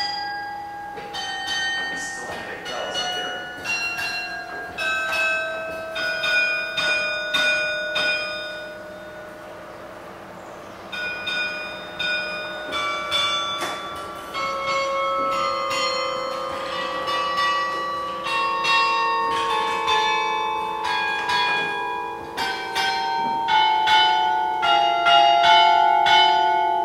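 Carillon bells struck one note at a time from the baton keyboard, each note ringing on under the next. The notes run in a series, pause briefly about ten seconds in, then continue and grow louder near the end.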